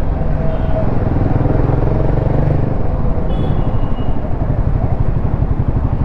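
Royal Enfield Himalayan 450's single-cylinder engine running as the motorcycle is ridden, a steady pulsing note, with a brief faint high tone a little past three seconds in.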